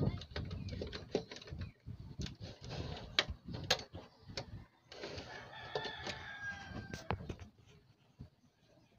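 A rooster crows once in the background, a call of about two seconds starting about five seconds in. Around it come sharp clicks and taps from hands working the wires and parts of an opened CRT TV chassis, the loudest about three seconds in.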